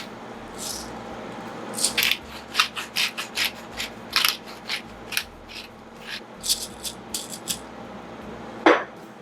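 Pepper mill being twisted to grind black pepper: a run of short, irregular gritty crunching bursts, with one louder brief sound near the end.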